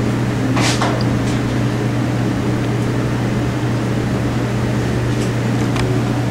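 Steady low hum of a running electric fan, with a brief rustle about a second in and a few light ticks near the end.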